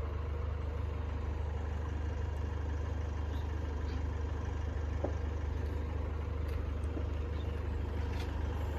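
A low, steady engine hum that does not change in level or pitch.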